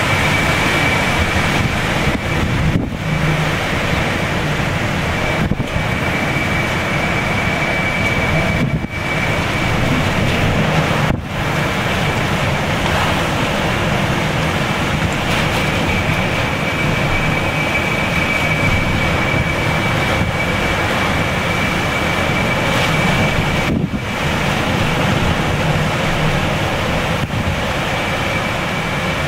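Hurricane winds blasting the microphone: a loud, continuous rush of wind noise, with a thin, steady high whistle running through it and a few brief momentary lulls.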